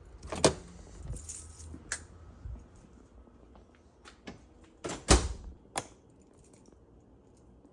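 A few sharp clicks and knocks, the loudest about five seconds in, between quieter stretches.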